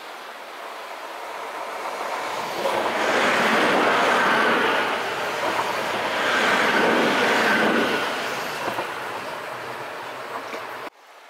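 Matterhorn Gotthard Bahn 'Zermatt Shuttle' metre-gauge electric train passing close by. Its running noise builds as it approaches, is loudest for several seconds as the cars go past, fades as it moves away, and cuts off suddenly near the end.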